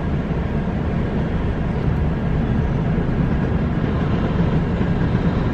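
Electric train running steadily, heard from inside the passenger car: an even rumble of wheels on the rails and the running gear.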